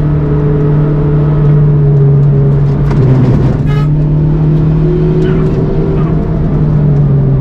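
Car engine running loudly at a nearly constant pitch, with only small shifts in engine speed. A brief high-pitched whistle comes a little past halfway.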